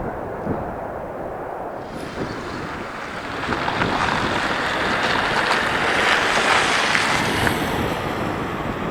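Aircraft engine noise swelling and fading as a plane passes, over strong wind buffeting the microphone.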